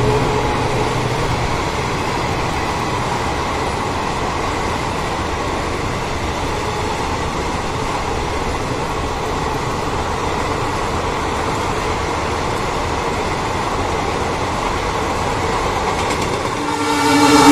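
Passenger coaches of a train rolling past on the track, a steady rumble of wheels on rail. Near the end a train horn starts sounding, loud and held.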